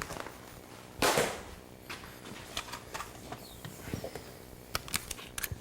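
Light handling sounds: scattered small clicks and knocks, with one brief louder rustle about a second in.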